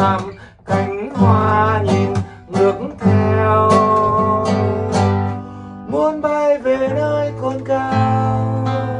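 A man singing a slow melody, holding one long note in the middle, over two strummed acoustic guitars, one a steel-string and one a nylon-string classical guitar.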